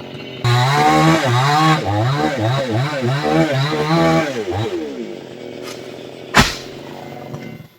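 Chainsaw idling, then revved up and down in quick throttle blips for about four seconds before dropping back to idle. A single sharp knock comes about six seconds in.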